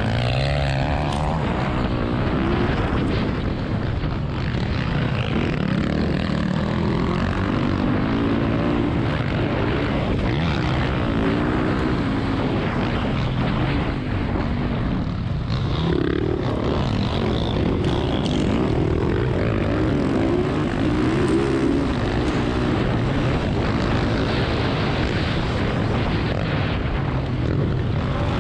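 Motocross dirt bike engine revving hard and easing off again and again, its pitch rising and falling as the rider races over the track.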